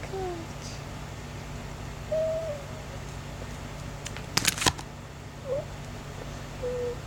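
Four short, soft hoot-like tones spread through, each under half a second, some level and some gliding slightly down. A quick run of sharp clicks just past the middle is the loudest sound, over a steady low hum.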